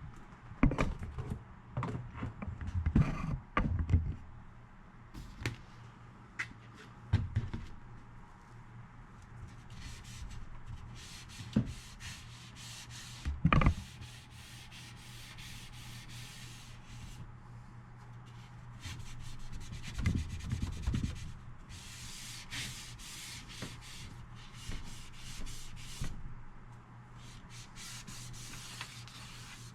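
Rubbing and scrubbing on a stereo's cabinet to clean off residue, in several stretches of scratchy rubbing broken by knocks and bumps as the unit is handled.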